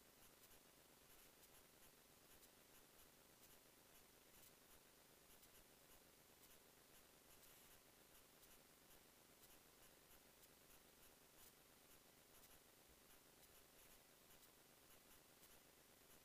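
Near silence: a faint steady hiss with faint, irregular ticks.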